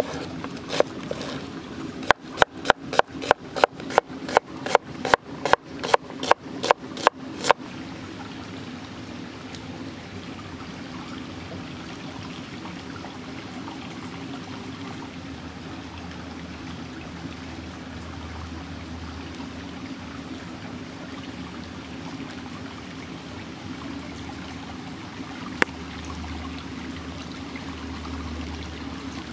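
Cleaver chopping onion on a wooden board, a quick run of even strokes about three a second lasting some five seconds, then the steady sound of running water.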